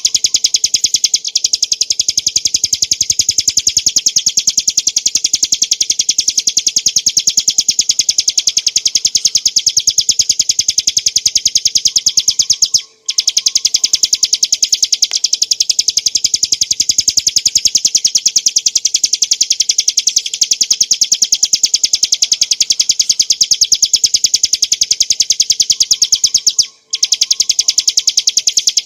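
Ciblek gunung, a small prinia, singing a rapid, unbroken run of high, sharp notes, with a brief pause about 13 seconds in and another near the end.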